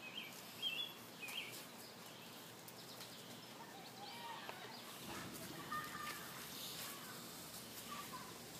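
Faint bird chirps over steady outdoor background noise: a few quick high chirps in the first second and a half, more chirping midway, and a few soft clicks.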